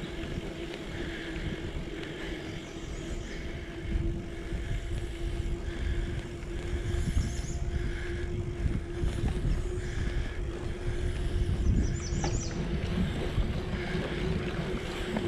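Wind rumbling on a GoPro's microphone and tyre noise from a bicycle rolling along a paved trail, under a steady hum. Soft high chirps repeat every second or two.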